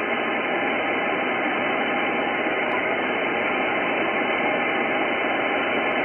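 Steady hiss of an Icom IC-9700 receiving single sideband on a satellite's 70 cm downlink with no station coming through: an even rush of receiver noise with nothing above it.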